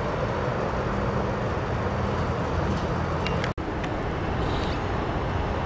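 Steady roar of airliner jet engines heard at a distance across the airfield, cut off for an instant about halfway through.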